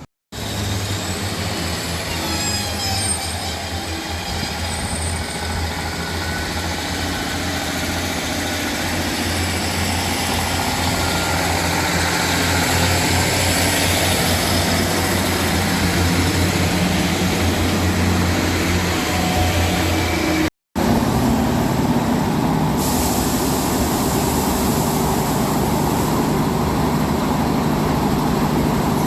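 Heavy vehicle's engine running with a steady low hum and road or rail noise, growing louder over the first ten seconds or so. The sound drops out for a moment about two-thirds of the way through.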